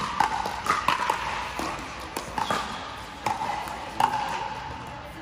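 Pickleball paddles hitting a hollow plastic ball during a rally, a quick irregular run of sharp pops, each ringing briefly in a reverberant indoor hall.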